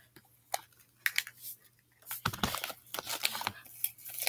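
Sticky crackling and squelching of slime with shaving cream being scraped and worked. The first two seconds are quiet with a few small clicks; a continuous irregular crackle starts about two seconds in.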